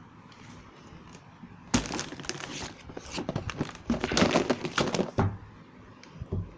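Toys being handled: a sharp knock, then about three seconds of fast clattering and rattling of hard objects that stops suddenly.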